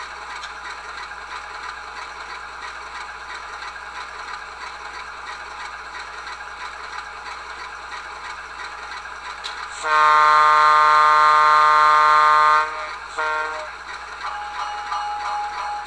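QSI Titan sound decoder in an HO-scale ALCO locomotive model, playing the ALCO 244 diesel idling steadily through its small speaker. About ten seconds in, the locomotive's multi-chime horn sounds one long blast of nearly three seconds, then a short toot. Near the end, a rhythmic mechanical sound starts.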